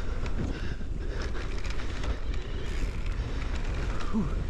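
Ibis Oso e-mountain bike rolling fast down a dirt trail: wind buffeting the camera microphone, tyre noise, and short knocks and rattles from the bike over bumps.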